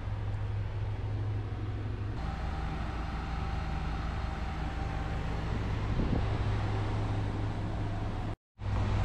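An engine runs at a steady speed as a low, constant drone with wind-like noise over it. The sound changes abruptly about two seconds in and drops out for a moment near the end, as at cuts between shots.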